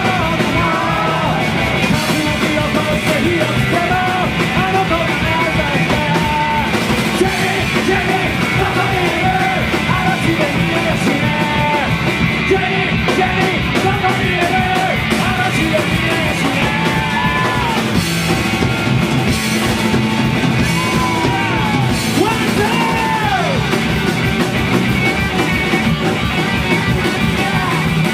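Live rock band playing a loud, driving punk-style rock song with a singer yelling over the full band.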